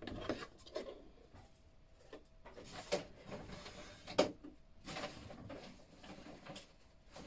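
Handling noise from a plastic Fisher-Price Little People house and other toys being moved on a tile tabletop: scattered short knocks and clicks with some rustling, the sharpest knock about four seconds in.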